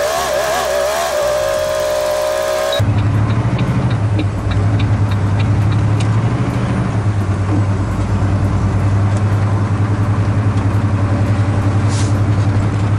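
Semi-truck's engine running on the road, a steady low drone. For the first three seconds it is masked by a wavering tone with overtones, and light regular ticking follows for a few seconds.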